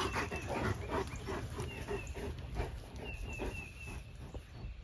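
Cane Corso dogs moving about and panting in soft, quick, even strokes, with no barking. Strings of short high chirps sound in the background from about a second and a half in.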